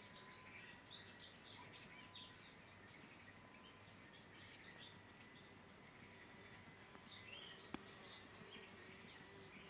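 Faint outdoor birdsong: many short, high chirps from small birds, with one sharp click about three-quarters of the way through.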